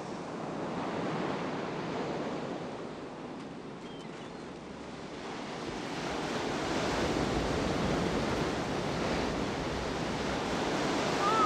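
Ocean surf breaking on a beach: a steady rushing wash of waves that swells louder in the second half.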